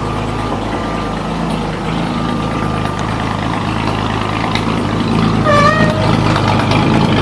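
1953 Chevrolet 3100 pickup's engine idling steadily. About five and a half seconds in, a short, wavering squeak.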